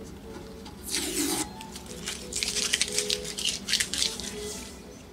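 Blue painter's tape being peeled off a painted panel: a short crackling pull about a second in, then a longer crackling peel from about two to four and a half seconds.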